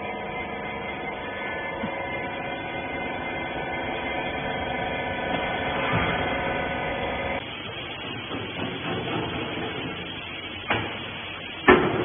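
Steady hum of a wiper bagging baler's hydraulic power unit running, made of several level tones. It stops abruptly about seven seconds in, leaving a fainter hiss with a click and then a sharp knock just before the end.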